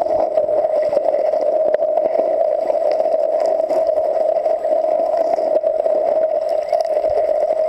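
Muffled, steady underwater rush picked up by a camera microphone held under river water, an even dull hiss with no distinct splashes or voices.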